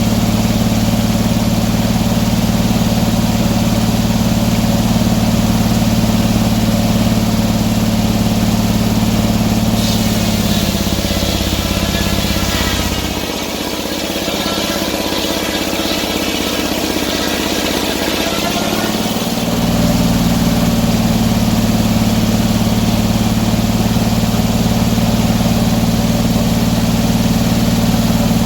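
Sawmill engine running steadily. About ten seconds in, its note drops and a high hissing whine joins it for about nine seconds, as under the load of the blade cutting through a pine log; then the engine returns to its steady note.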